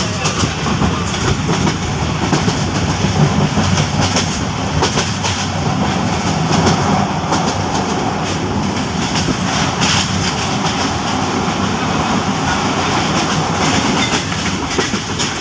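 Passenger train running along the track: a steady rumble with the wheels clicking over rail joints.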